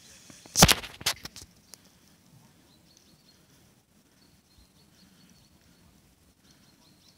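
A quick run of sharp knocks or clicks in the first two seconds, then quiet outdoor ambience with faint bird chirps.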